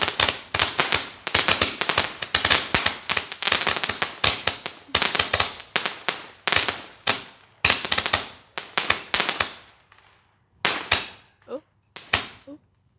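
A firework going off in a rapid string of sharp bangs and crackles, several a second, which thins out near the end to a few last scattered pops.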